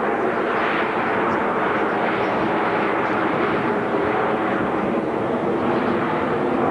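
Steady, loud jet engine noise from Blue Angels F/A-18 Hornets in flight, a continuous rushing sound that swells and eases slightly.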